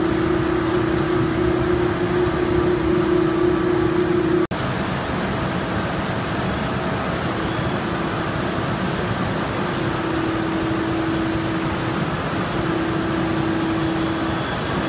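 Takano B201 slitter rewinder running: steady mechanical noise of its rollers and drive with a steady hum. The sound cuts out for an instant about four and a half seconds in and comes back a little quieter, with the hum fading in and out.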